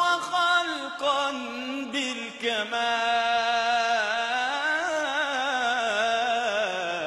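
A male munshid singing an Arabic devotional chant in long held notes that waver with melismatic ornaments.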